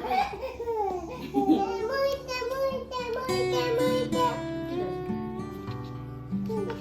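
Background music on plucked acoustic guitar over a stepping bass line. A baby's voice babbles briefly at the start.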